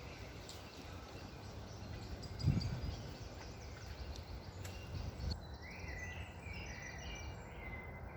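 Songbirds chirping over steady wind rumble, with a stronger gust about two and a half seconds in and a quick run of high chirps near the end.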